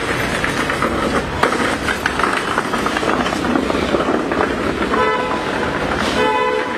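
A steady rolling rumble, with two short horn toots about five and six seconds in, the second a little longer.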